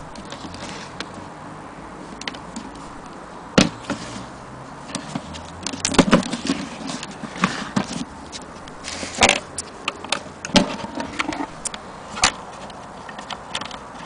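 Irregular mechanical clicks and clunks from a 1930 Imperial Companion portable typewriter being worked by hand, with a handful of louder knocks among lighter ticks.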